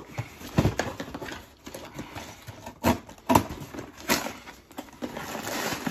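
Cardboard box being cut open with a box cutter and handled: a few sharp, hollow knocks on the cardboard at uneven intervals, with a scraping rustle near the end.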